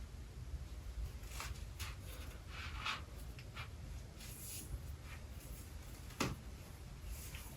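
Faint scratchy rustling from close handling, a few short strokes, with one sharp click about six seconds in.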